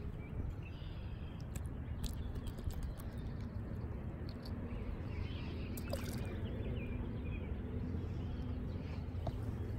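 Steady low wind rumble on a chest-mounted microphone, with scattered small clicks and rustles from handling the line and hook and from a jacket sleeve brushing the mic. Faint bird calls sound now and then.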